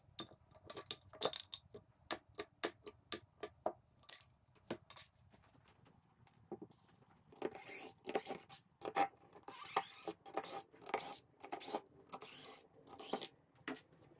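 HDPE mortar tubes clicking and knocking against the wooden rack as they are lifted out and set down, then a cordless impact driver running in a series of short bursts from about seven seconds in, backing screws out of the plywood top.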